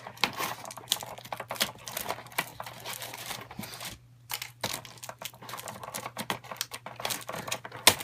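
Cardboard box and paper packaging being handled: crinkling and rustling with many small clicks and taps, briefly pausing about halfway through.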